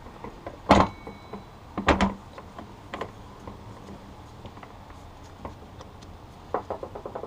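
Metal parts of a Honda CB750 transmission knocking and clinking as the shift fork shaft is worked into the forks and shift drum in the crankcase: two loud knocks about a second apart, a lighter one, then a run of small clicks near the end.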